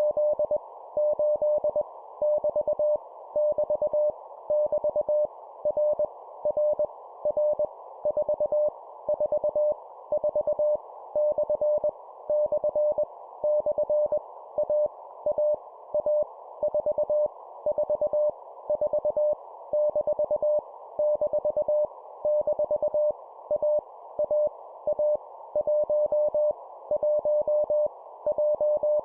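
Morse code (CW) at 20 words per minute: a single tone of about 600 Hz keyed on and off in short groups of dots and dashes with brief pauses between, sending random letters, numbers and punctuation, each repeated three times. A steady narrow band of hiss runs under the tone.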